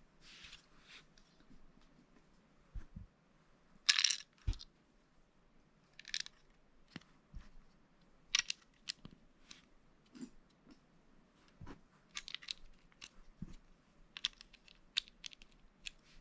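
Lego Speed Champions plastic pieces clicking and snapping together, with loose pieces rattling against each other; the loudest rattle comes about four seconds in.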